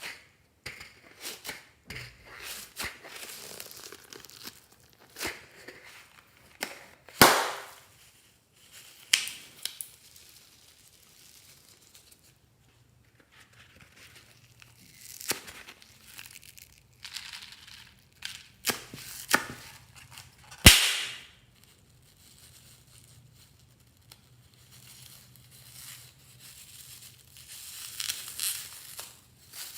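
Glossy slime being worked by hand, giving irregular sticky crackles and pops, with two sharper, louder snaps, about a quarter and about two-thirds of the way through.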